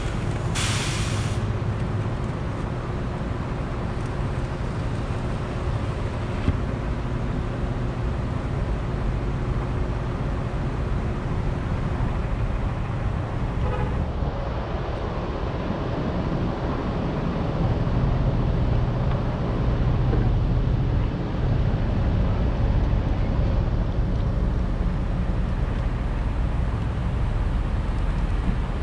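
A car's steady low engine and road noise, getting somewhat louder a little past halfway through.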